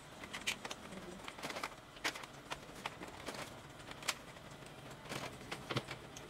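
Irregular plastic clicks and knocks from handling the opened-up Epson L120 printer's plastic frame and mechanism, a few sharper snaps standing out among lighter tapping.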